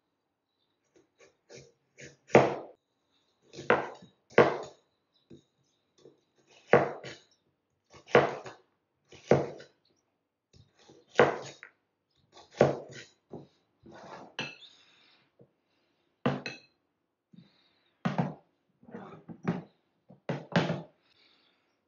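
Chinese cleaver chopping a carrot on a bamboo cutting board: single sharp knocks of the blade hitting the board, about one a second with short pauses. Near the end come a few duller knocks as bowls are set down on the table.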